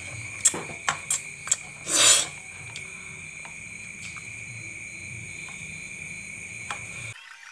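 A steady high-pitched insect trill, like crickets, with a low hum beneath, broken by a few light clicks and a short rustle about two seconds in as wires and a soldering iron are handled. It all cuts off abruptly near the end.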